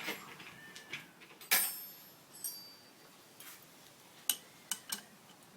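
Scattered light clicks and knocks at an uneven pace, the loudest about a second and a half in, with one short metallic clink that rings briefly about two and a half seconds in.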